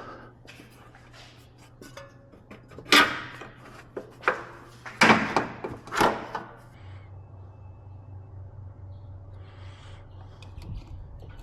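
Metal clunks and knocks from work on a car's front suspension as the lower control arm is freed: four loud knocks about a second apart in the middle, with lighter clicks and rattles around them.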